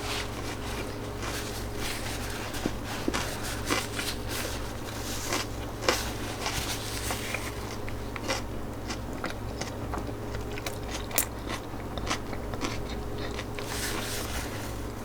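A person chewing food close to the microphone, with many small crunches and crackles scattered throughout, over a steady low hum.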